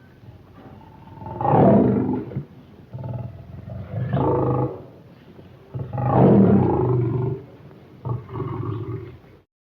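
Monster roar sound effects for a demon bear-dragon creature: low growls each swell into a loud, rough roar, about four times, and the sound cuts off suddenly near the end.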